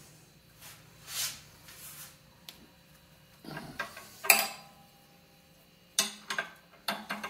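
Steel wrench clinking against the nuts of a bearing puller as it is fitted and turned to draw a drill press spindle bearing, a scatter of sharp metal clicks with brief ringing, the loudest about four seconds in and a quick cluster near the end.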